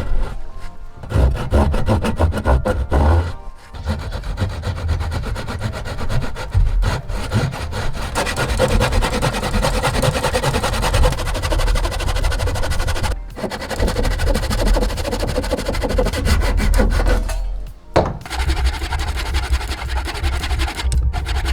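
A tool rasping against wood in long continuous passes, with short pauses about three and a half seconds in, near the middle and about eighteen seconds in; background music plays underneath.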